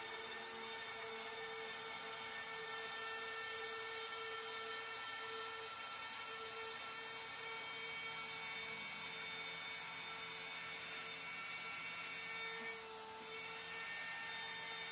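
CNC router's spindle running at a steady high whine as its quarter-inch bit cuts a circular profile groove into end-grain wood. The pitch holds steady throughout, with a brief dip near the end.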